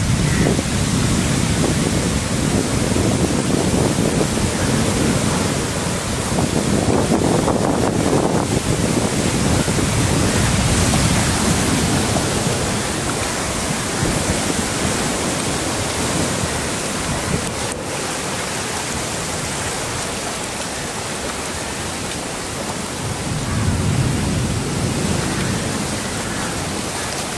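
Seawater surf surging and rushing through flooded ground, a steady loud wash of water noise with a low rumble that swells and fades, briefly stronger about 24 seconds in.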